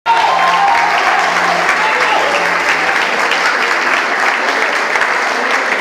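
A crowd of people applauding steadily, with a few voices through the clapping.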